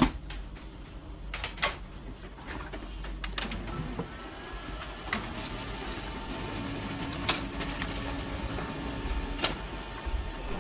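Low steady hum with scattered sharp mechanical clicks, the sharpest at the very start and twice in the last few seconds.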